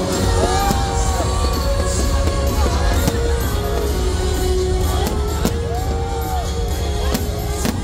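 Music with a singing voice, with a few sharp bangs of fireworks scattered through it.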